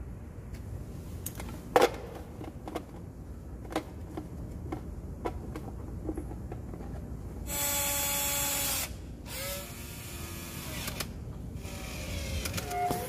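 Cordless drill-driver whirring in short runs on a plastic waterproof junction box: one strong steady run of about a second and a half a little past halfway, then shorter, fainter runs. Scattered clicks and knocks of handling come before it.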